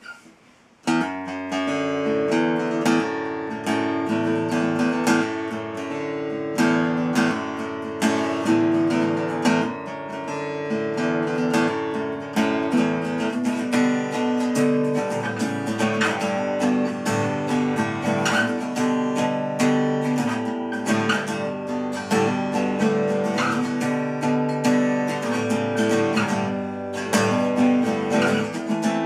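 Acoustic guitar strummed in a steady rhythm of chords, starting about a second in after a brief quiet.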